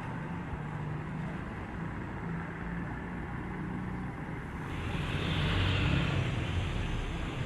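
Motor vehicle engine running with a steady low hum under a haze of noise, swelling louder with added hiss about five seconds in.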